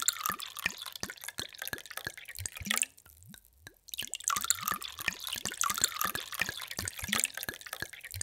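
Water poured in a thin stream into a glass, splashing with many small bubbly plops. The pouring stops for about a second near three seconds in, then starts again.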